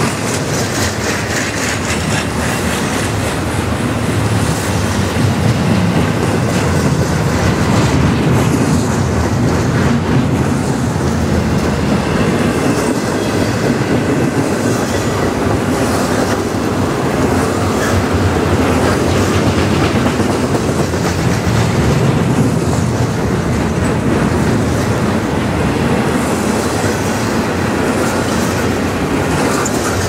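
A freight train's double-stack container well cars rolling past close by, a steady rumble with the clack of wheels over the rail joints.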